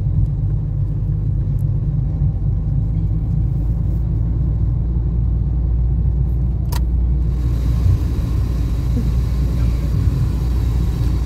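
Steady low rumble of a car's engine and road noise inside the cabin as it is driven, with a single sharp click about seven seconds in, after which a faint hiss joins.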